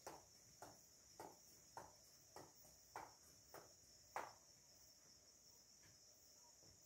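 Faint footsteps in flip-flops on a concrete floor, about one and a half steps a second, stopping about four seconds in. Crickets chirp steadily throughout.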